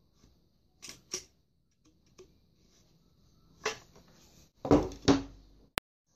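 Light clicks of a homemade wood-and-bamboo toy gun being handled, its rod and bamboo parts knocking together, then louder wooden knocks near the end, the loudest pair about five seconds in as the gun is set down on a wooden tabletop, and a single sharp click just after.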